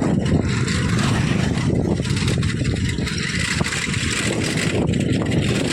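Wind buffeting the microphone while riding a bicycle along a road: a steady, loud low rumble.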